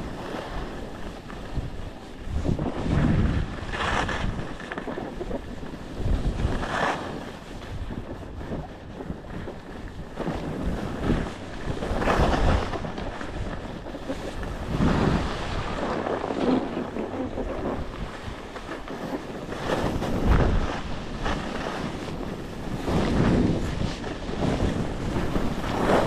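Skis scraping and hissing over snow through a run of turns, the rush swelling every two to four seconds, with wind buffeting the microphone.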